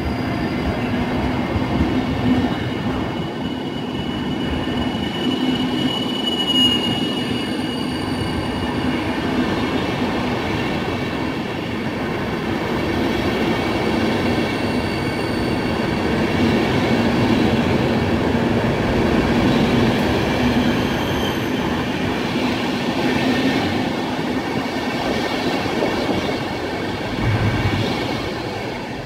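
Intercity passenger coaches of a departing train rolling past on the rails, a steady rumble of wheels with thin high squealing tones above it. The sound fades near the end as the last coach leaves.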